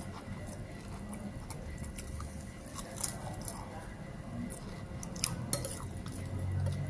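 Eating sounds: chewing, with a few sharp clicks of a spoon against a plate, the loudest about three seconds in and twice more a little after five seconds.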